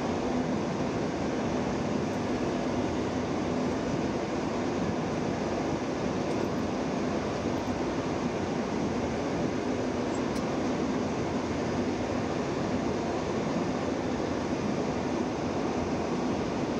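Steady rushing noise with a constant low hum from a parked Boeing 787 before engine start, its APU and air conditioning running.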